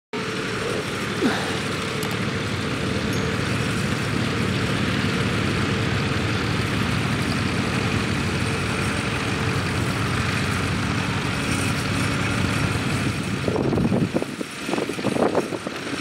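International B-series tractor engine running steadily under load while pulling a plough through stubble. The sound turns louder and uneven in the last couple of seconds.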